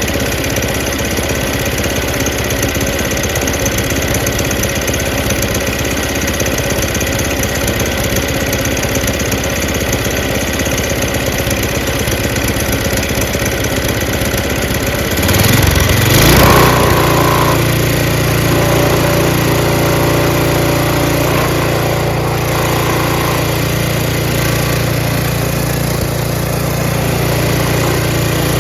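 Tecumseh 5.5 hp single-cylinder engine on a two-stage snowblower running after its carburetor has been cleaned. About halfway through it surges briefly louder, then settles into a steadier, more even run.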